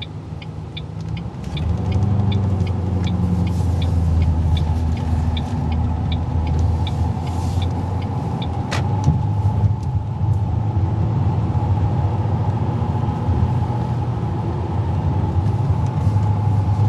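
A car driving, with a steady low engine and road rumble that grows louder about two seconds in as it speeds up. A regular light ticking, about two a second, runs through the first half.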